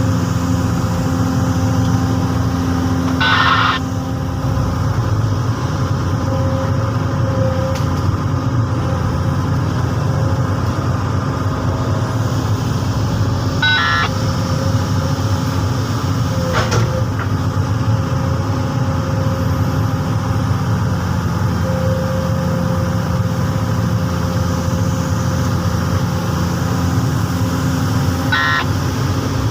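Komatsu PC200 hydraulic excavator's diesel engine running steadily as it works, with three brief high squeals, about three seconds in, midway and near the end, and a single sharp clank a little after the middle.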